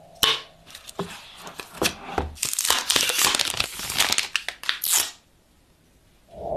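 Thin plastic protective sleeve crinkling and tearing as it is peeled and pulled off a phone: a dense run of crackles and snaps lasting about five seconds, then stopping.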